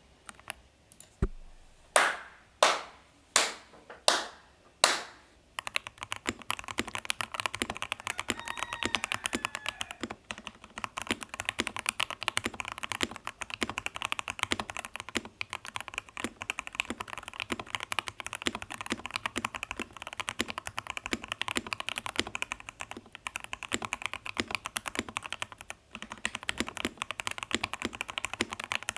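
Ikki68 Aurora mechanical keyboard with lubed Lilac linear switches on an aluminum plate. First come five single, loud key strikes about two-thirds of a second apart, each dying away briefly. Then comes fast, continuous typing, with a short break near the end.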